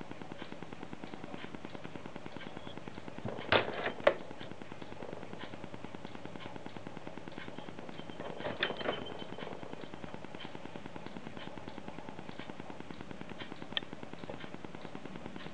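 Sharp mechanical clicks and clacks from the hand-worked lever and linkage of a Sears CED video disc player, in two short clusters about 3.5 and 8.5 seconds in and once more near the end. A fast, even ticking runs underneath throughout.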